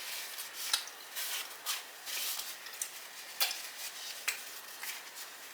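Close-miked chewing of a mouthful of steak and cheese sub on flatbread: irregular short mouth clicks and smacks, a few sharper than the rest.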